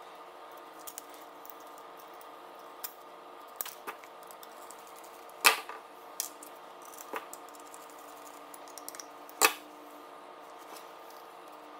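Scattered small clicks and taps of metal screws, a hex driver and frame plates being handled during assembly, with two sharper clacks about five and nine seconds in.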